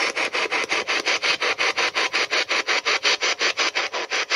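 Spirit box, a handheld radio scanner sweeping rapidly through stations, giving choppy static in even bursts about eight times a second.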